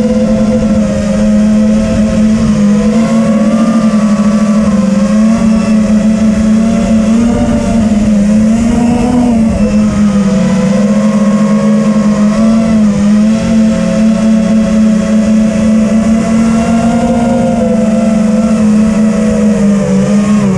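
TBS Vendetta racing quadcopter's brushless motors and propellers whining steadily in flight, the pitch rising and falling slightly as the throttle changes.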